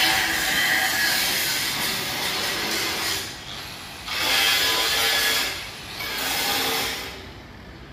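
Angle grinder grinding the steel front of a heavy truck's chassis, its motor whining under the grinding, in three spells: a long one that stops about three seconds in, then two shorter ones about four and six seconds in, going quiet about seven seconds in.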